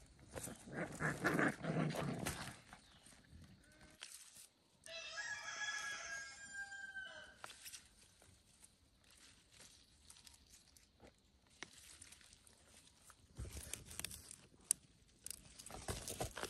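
A rooster crows once, about five seconds in, for a couple of seconds. Around it are footsteps and rustling on dry soil and leaves, loudest in the first two seconds, and near the end the crackle of radishes being pulled from the dry earth.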